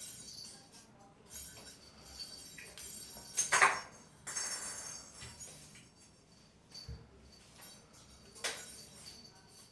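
A hair clip clattering and clicking as a kitten bats and plays with it: scattered light clicks and jingly rattles, the loudest a sharp clatter about three and a half seconds in, followed by about a second of rattling.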